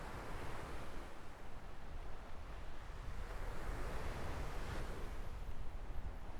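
Small waves breaking and washing up on a sandy shore, with two swells of surf about four seconds apart, over a steady low rumble of wind on the microphone.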